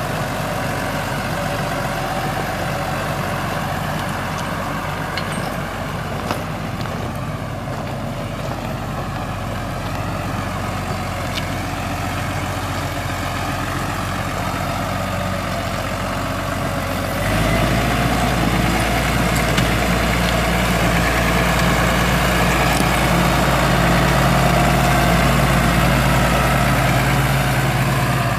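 Six-cylinder diesel engine of a 2011 New Holland T6050 tractor running steadily. About two-thirds of the way in it suddenly gets louder and heavier in the low end.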